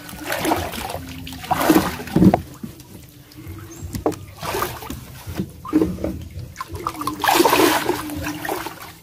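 Water sloshing and splashing around a person's legs as she wades through a shallow muddy river, in irregular surges every second or so.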